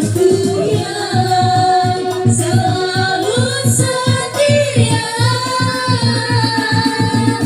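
Live organ tunggal music: a singer holding long, wavering notes over a keyboard accompaniment with a steady beat.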